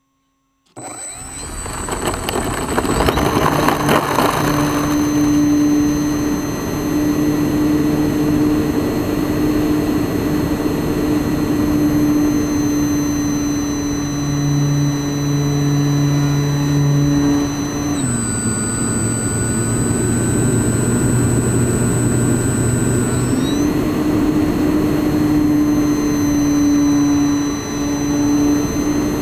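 Onboard sound of a radio-controlled model Yak-55's electric motor and propeller, a steady whine with high tones over rushing air. It comes in suddenly about a second in and builds over the next few seconds as the throttle opens. The pitch drops about two-thirds of the way through and comes back up a few seconds later.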